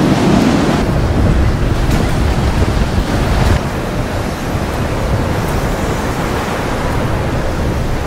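Strong wind buffeting the microphone over waves rushing and breaking against a sailing catamaran's hulls in rough seas, a little quieter from about midway.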